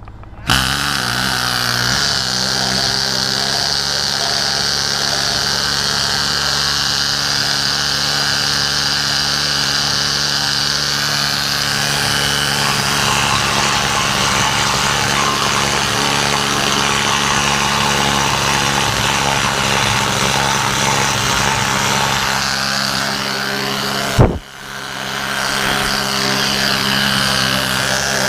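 Pneumatic needle scaler hammering steadily as it chips at a surface. It drops out briefly with a sharp knock about 24 seconds in, then starts again.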